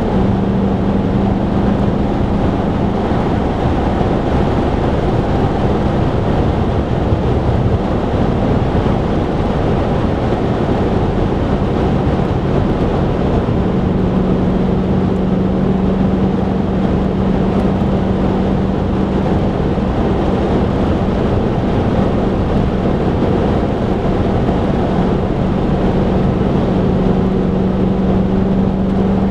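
Car cabin noise at motorway speed: steady tyre and road roar with a low engine drone.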